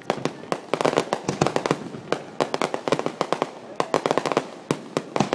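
Aerial fireworks display close by: a rapid, dense run of sharp bangs and crackling pops from bursting shells, several reports a second without a break.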